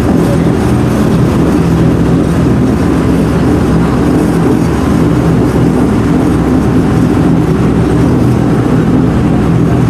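Engine of an amphibious Duck boat running steadily under way, a constant low drone heard from on board.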